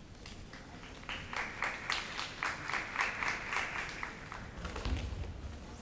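Audience applause: rapid hand clapping that starts about a second in and dies away after about three seconds. A dull low thud follows near the end.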